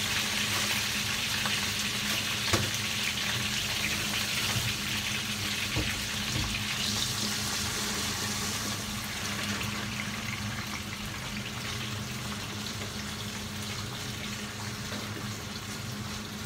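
Potato fries frying in hot oil: a steady sizzle that quietens in the second half, broken by a few sharp pops of spattering oil.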